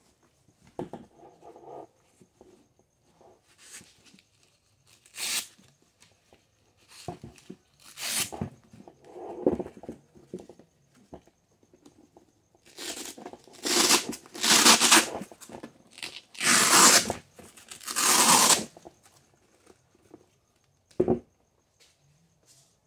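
Hook-and-loop (Velcro) fastening on a nylon plate carrier being ripped apart in a series of pulls as the cummerbund and flaps are detached; the longest and loudest rips come about two-thirds of the way through. One short sharp knock near the end.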